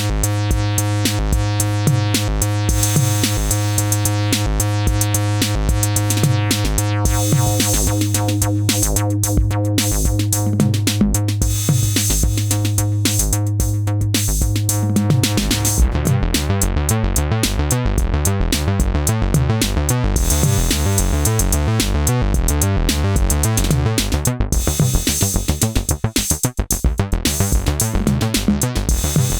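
Electronic track of a drum machine beat under a synthesizer bass line. For the first half the bass holds long, steady low notes; about halfway through it changes to a choppier, more rhythmic sound.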